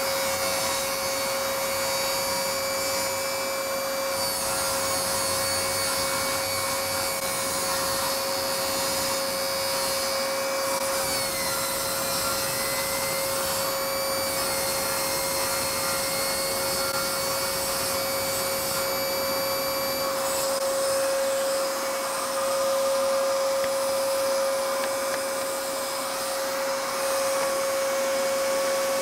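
Jobsite table saw running with a steady whine while its blade cuts into an MDF board that is lowered onto it in plunge cuts and fed forward in short climb cuts to pencil stop lines.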